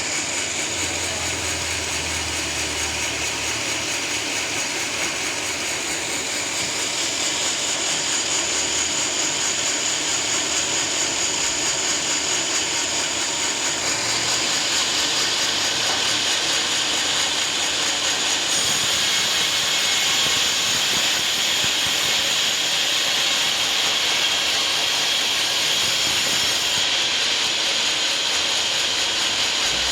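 Band sawmill running steadily as its blade saws through a teak log, a continuous high hiss and whine that grows louder about halfway through.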